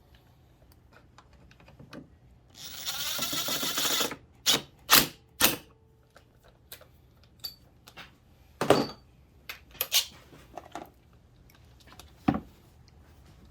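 Workshop handling noises: a rapid rasping run of fine clicks lasting about a second and a half, like a ratchet being worked, then a string of separate sharp clicks and knocks of tools and small metal parts.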